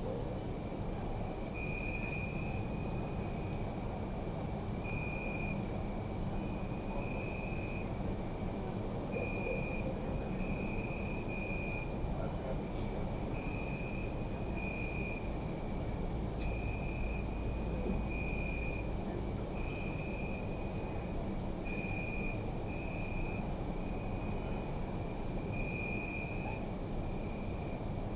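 Crickets chirping at night. A high-pitched continuous trill breaks off briefly every second or two, and a lower chirping comes in short bursts, over a low steady rumble.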